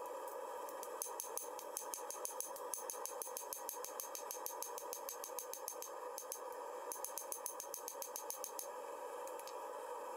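Rapid, evenly spaced light hammer blows on a hot steel knife blade lying on an anvil, about five a second, in two runs: one from about a second in, another near the end. A steady hum runs underneath.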